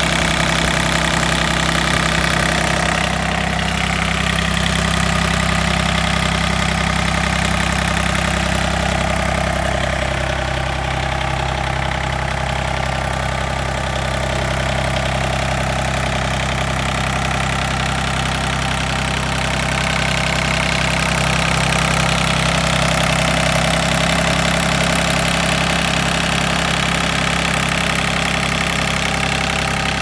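John Deere 855 compact tractor's three-cylinder diesel engine idling steadily, heard up close at the open engine bay.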